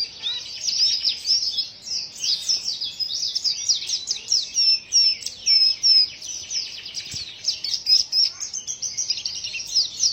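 A pleci (white-eye, Zosterops) singing a rapid, unbroken twittering song of quick down-slurred notes, kept for its unusual song.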